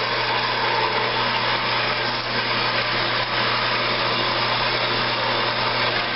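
Harbor Freight 4x6 metal-cutting bandsaw, set up vertically, running steadily as its blade cuts through a rusty, thin-walled iron pipe, with a steady motor hum underneath.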